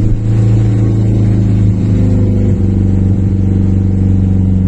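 Car engine running hard under load at a fairly steady pitch, on a third attempt to drive up a steep, muddy track.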